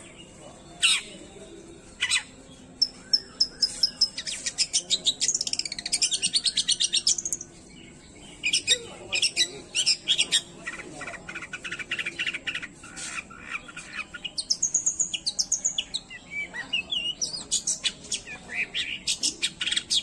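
Long-tailed shrike (cendet) singing a loud, fast, varied song: rapid runs of sharp chattering notes broken by short whistled glides, with a brief pause about two-fifths of the way in.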